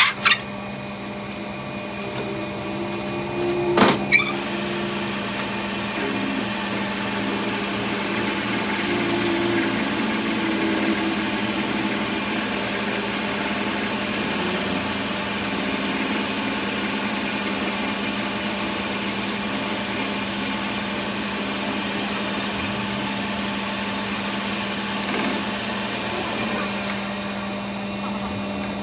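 A workshop machine running steadily with a constant hum and hiss, with two sharp knocks: one at the very start and one about four seconds in.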